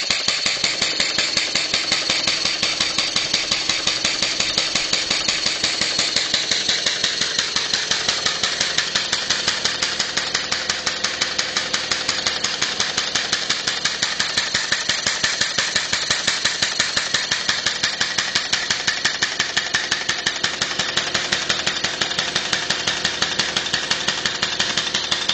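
Two-cylinder Sears air compressor converted to an engine, running on compressed air at about 80 psi with its valve system working: a steady, rapid, even beat of strokes, about four or five a second.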